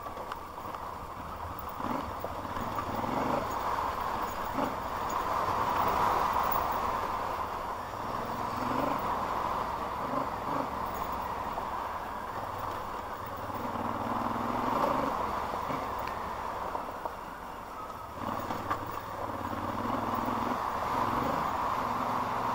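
A vehicle driving on a rough unpaved road: the engine runs low and steady under noise from the tyres on the loose surface, swelling and easing at times, with occasional light knocks.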